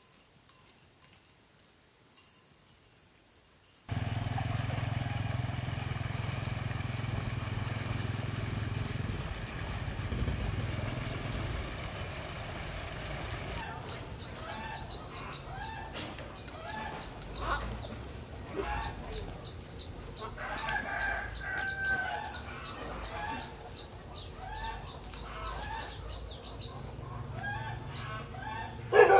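Chickens clucking in quick repeated calls, with a rooster crowing. The first few seconds are quiet; then a low rumble comes in, and the clucking fills the second half.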